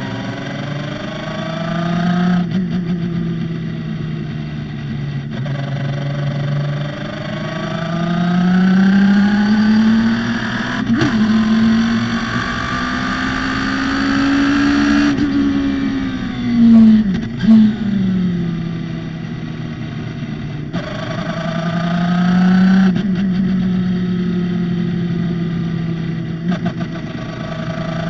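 Radical SR3 race car's motorcycle-derived four-cylinder engine at racing revs, climbing in pitch through the gears with sharp drops at each upshift, then falling away through downshifts under braking. There are two short, loud bursts about two-thirds of the way through.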